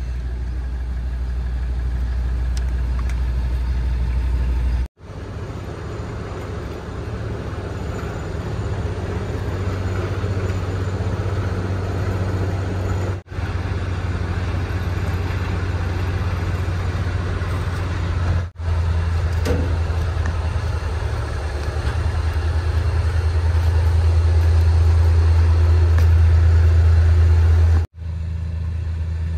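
Excavator's diesel engine idling with a steady low drone, cut off abruptly a few times and growing a little louder toward the end.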